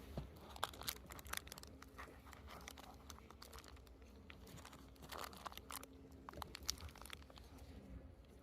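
Faint handling noise during a beehive inspection: scattered small clicks and crackles, bunching up about five seconds in and again near seven seconds.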